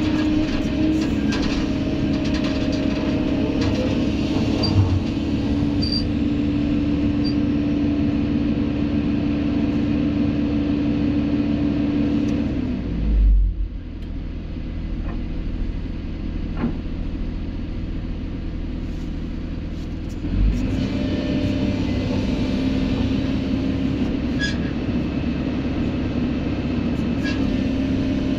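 Kobelco SK200 excavator's diesel engine and hydraulics running hard, heard from inside the cab. About halfway through the revs drop to a lower, quieter run with a low thud, and about seven seconds later another thud as the revs climb back up.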